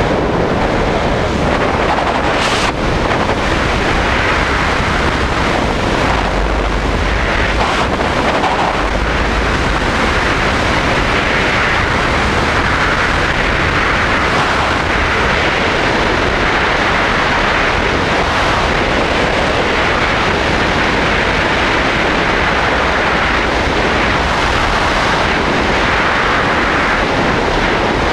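Loud, steady rush of freefall wind buffeting the microphone of a skydiver's body-mounted camera.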